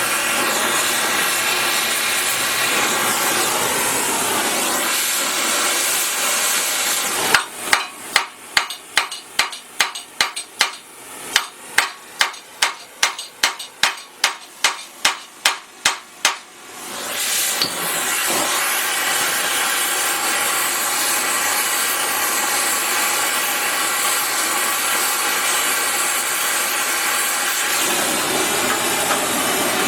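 A gas torch hissing steadily while it heats a steel rivet. It stops, and about twenty sharp hammer blows follow at roughly two or three a second, bucking the hot rivet head flat against heavy steel backing. Then the torch hiss starts again.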